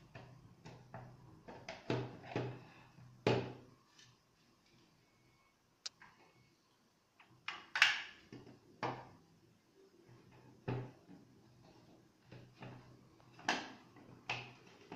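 Hard 3D-printed plastic pieces of a snake skull model clicking and knocking against each other and on a wooden tabletop as they are handled and taken apart. The knocks are short and irregular, with a quieter stretch of a few seconds and the loudest knock about eight seconds in.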